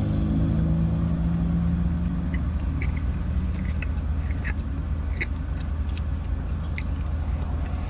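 Steady low rumble of a car idling, heard inside the cabin. Scattered faint mouth clicks come from someone chewing a bite of burger.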